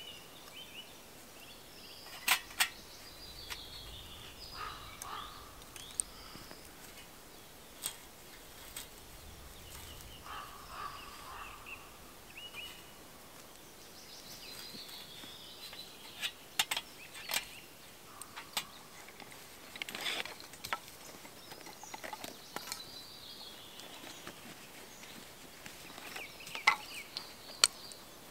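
Wild songbirds chirping and singing in spring woodland, with sharp clicks and knocks from metal and wooden gear being handled. The loudest knocks come in a pair about two seconds in and another pair near the end.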